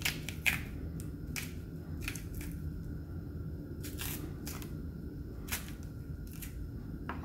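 Green banana skin being pried and broken off by hand: scattered small crisp cracks and clicks, about ten in all, the sharpest about half a second in, over a steady low hum.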